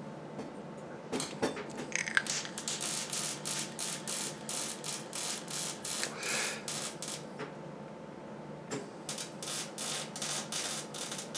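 Electric arc welding on a mild steel box-section chassis: crackling and spitting of the arc in two runs, starting about a second in, with a short pause past the middle before the second run. A faint steady hum sits under it.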